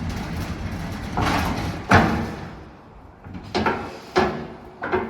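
Multi-chamber waste baler being worked as its press head is brought back across: a steady mechanical running sound, then a loud metal clunk about two seconds in that rings away, followed by three lighter knocks.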